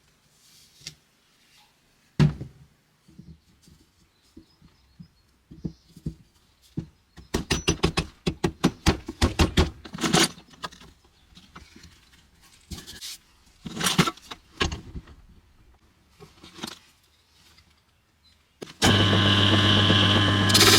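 Workshop handling: a string of knocks, taps and scrapes, with a quick rattle of clicks in the middle. Near the end an electric power tool switches on and runs steadily.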